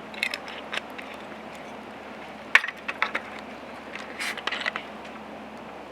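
Scattered small clicks and knocks over a steady background hiss, the sharpest about two and a half seconds in and a quick cluster a little past four seconds.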